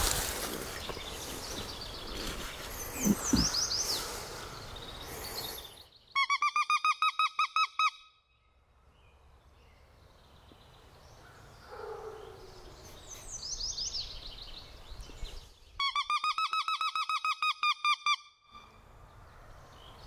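A turkey hunter blows a handheld game call: two loud runs of about a dozen rapid, evenly spaced notes each, about two seconds apart in length, meant to draw gobbles from turkeys nearby. Faint songbird chirps come in between.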